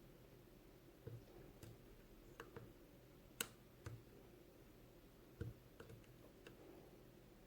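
Faint, scattered clicks of a lock pick working the pin stacks of a Wilka 1410 six-pin half-cylinder lock held under tension, the pins being set one after another. The sharpest click comes a little over three seconds in.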